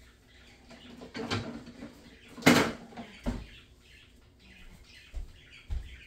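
Knocks and clatter of kitchen things being handled and moved, the loudest about two and a half seconds in, with a couple of dull thumps near the end.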